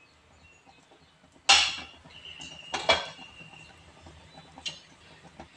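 Utensil clinks against a cooking pan: a sharp knock about a second and a half in, another a little later with a short ringing tone, and a light tap near the end, over a quiet background.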